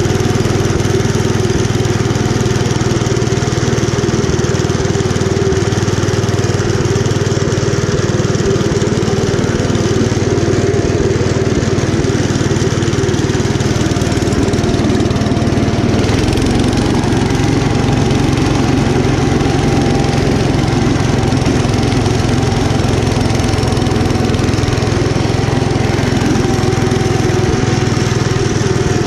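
1972 Gravely Commercial 10A walk-behind tractor's Kohler K241 10 hp single-cylinder engine running steadily under load while clearing snow. Its pitch steps up slightly about halfway through.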